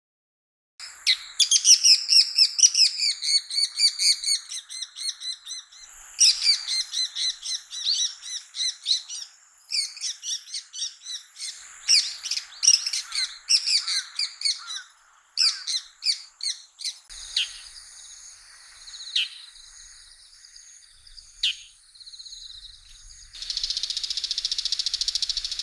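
Bull-headed shrike calling: fast series of sharp, chattering high notes that thin out after about 16 seconds to a few single calls. A steady high hiss comes in near the end.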